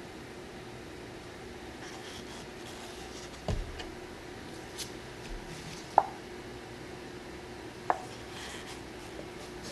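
Plastic paint cups being handled and set down while paint is layered into a pour cup: a soft thump about three and a half seconds in, then two sharp clicks about six and eight seconds in. A steady faint hum runs underneath.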